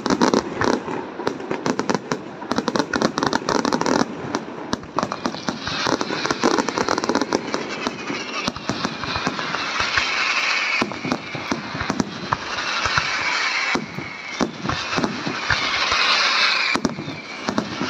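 Luigi Di Matteo aerial fireworks display: rapid shell bursts, many bangs in quick succession. From about six seconds in, a dense crackle runs under the remaining bangs.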